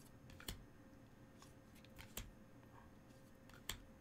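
Magic: The Gathering trading cards being flipped through by hand, one at a time: faint light snaps as each card is slid to the back of the stack, the sharpest about half a second, two seconds and three and a half seconds in.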